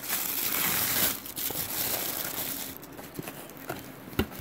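Tissue paper crinkling and rustling as it is pulled and pushed aside inside a cardboard box, loudest in the first second, then softer handling with a few light taps.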